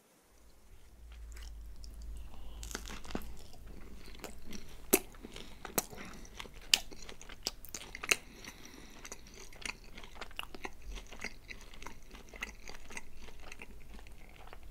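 Close-miked chewing of Domino's pizza, starting about a second in, with many sharp crunches of the crust.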